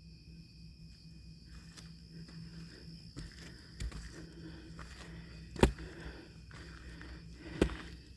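A hiker's footsteps along a forest trail, a series of soft steps with two heavier footfalls near the end, over a steady high insect drone.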